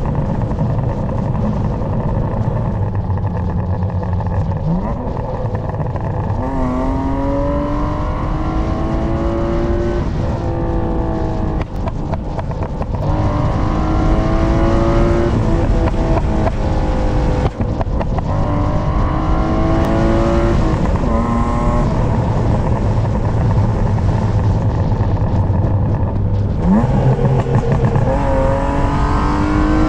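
BMW E36's M52B25 2.5-litre straight-six engine under way, at first a steady low drone, then pulling in several long climbs in pitch that fall back between them, the last climb starting near the end.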